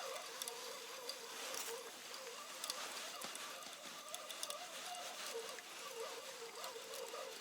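Strong wind with blowing snow: a steady hiss with a faint wavering whistle and scattered light ticks, as of snow grains striking.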